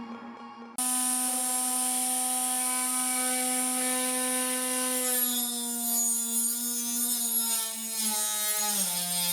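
A 12 V 775 DC motor spinning a 4-inch saw blade with a high whine that comes in abruptly about a second in. From about halfway the pitch wavers and dips as the blade cuts wood, and it sags lower near the end under the load.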